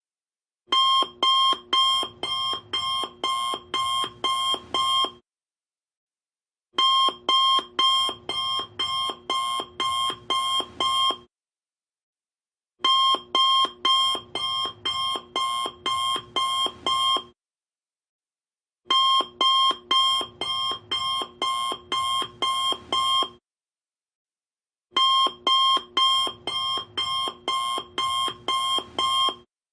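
Alarm clock going off: runs of rapid, high beeps lasting about four seconds each, broken by pauses of about a second and a half, repeating five times.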